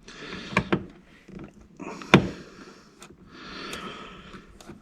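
Hands working small wiring parts: a few light clicks, a sharper click about two seconds in, and rubbing noises in between.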